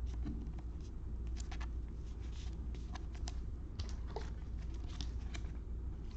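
Trading cards being handled and flipped through: faint scattered clicks, taps and rustles over a steady low hum.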